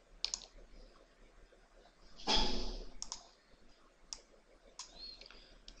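Scattered clicks of a computer mouse and keyboard, a few single clicks about a second apart, with one louder noise lasting just under a second about two seconds in.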